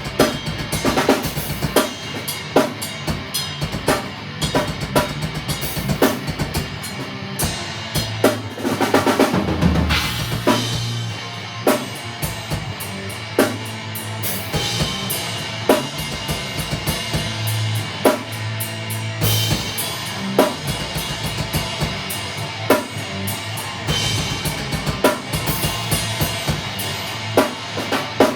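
A live drum kit playing a steady beat with bass drum and snare, with a guitar playing along in a jam.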